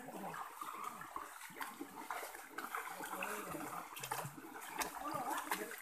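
Feet wading through shallow muddy stream water: irregular sloshing and splashing steps.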